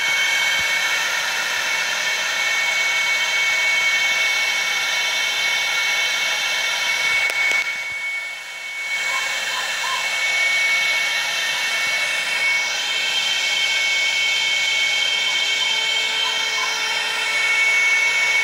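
Laser engraving machine running while marking a firearm part: a steady high-pitched whine with a constant tone over an airy hiss, dipping briefly about eight seconds in.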